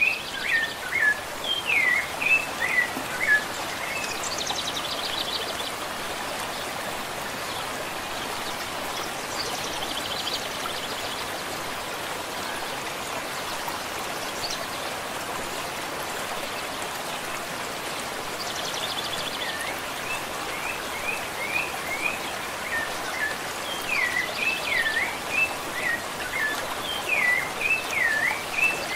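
Rufous-bellied thrush (sabiá-laranjeira) singing phrases of clear, slurred whistled notes at the start and again through the last ten seconds, with a long gap between them. A few short buzzy trills are heard, and a steady hiss of background noise runs underneath.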